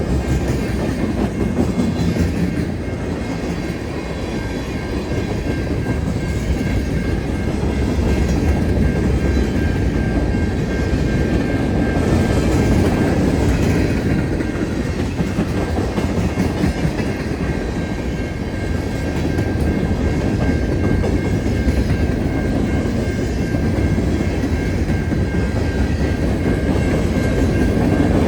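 CN freight train's cars rolling past at a level crossing: a steady rumble of wheels on rail with rhythmic clickety-clack.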